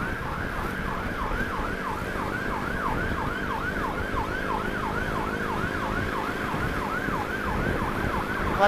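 Electronic emergency-vehicle siren in a fast yelp, each cycle sweeping down in pitch, about three cycles a second, over road noise.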